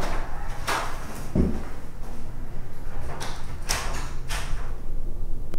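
A door being handled and opened, with a dull thud a little over a second in, then several sharp knocks and rattles in the second half.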